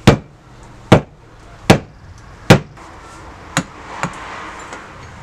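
A mattock's wooden handle banged down butt-first four times, about one sharp knock a second, driving the steel head down onto the tapered handle to seat it; two lighter knocks follow.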